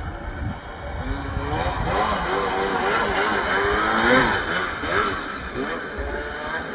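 Arctic Cat Alpha One M8000 snowmobile's two-stroke 800 twin revving up and down repeatedly as the sled works through deep powder. The revs peak about four seconds in.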